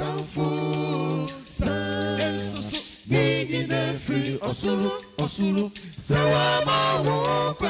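A cappella group singing: several unaccompanied voices hold notes in harmony over a sustained low part, with short breaths between phrases.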